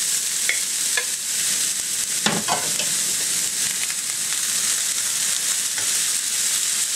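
Shredded broccoli slaw sizzling in a hot wok with soy sauce, a steady hiss, while a spatula stirs and tosses it, with a few knocks and a short scrape of the spatula against the wok.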